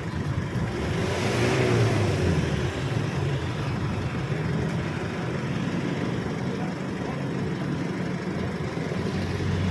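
A motor vehicle's engine running steadily over road noise, swelling a little about a second or two in.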